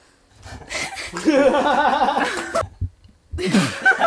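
People laughing out loud: a hearty laugh of about two seconds with a rapidly wavering pitch, a brief pause, then another burst of laughter near the end.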